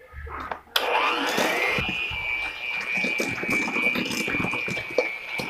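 Handheld electric mixer switched on about a second in, its motor whine rising quickly and then holding steady as the beaters cream butter, sugar and eggs. The beaters knock against the stainless steel bowl.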